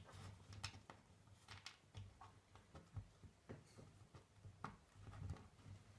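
Near silence with scattered faint clicks and taps from small parts being handled.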